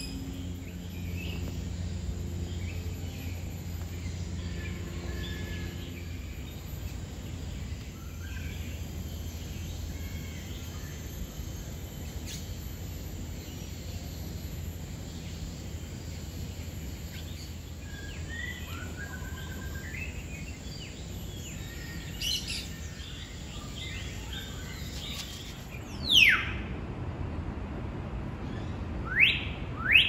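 Assorted bird chirps and calls over a steady low hum. Near the end come two loud, sharp whistles a few seconds apart, each sweeping steeply downward in pitch.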